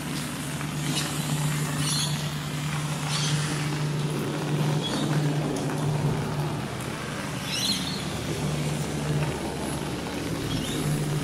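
Street ambience with a motor vehicle's engine running as a steady low hum under a constant wash of noise, plus a few short high-pitched sounds.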